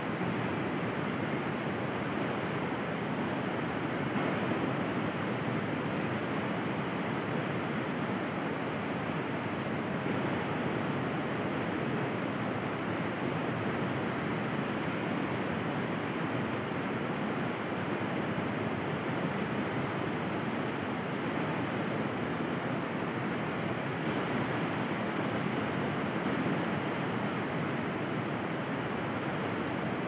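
River water flowing, a steady unbroken noise.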